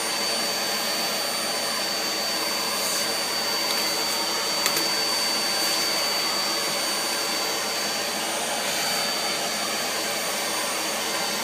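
Vacuum cleaner running steadily, a continuous rushing motor noise with a thin high whine that drops out about halfway through. A single sharp click comes near the middle.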